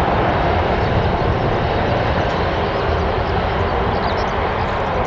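Boeing 737-500's CFM56-3 jet engines running at taxi power as the airliner moves away, a loud, steady rush of engine noise.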